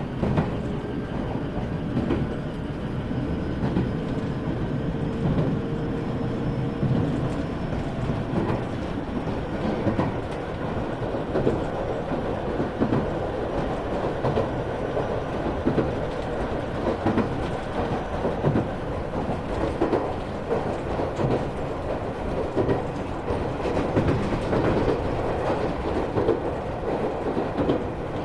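Iyotetsu 3000 series electric train running, heard from inside motor car MoHa 3103: a steady rumble with repeated clickety-clack of wheels over rail joints. Over the first several seconds a faint motor tone slowly falls in pitch.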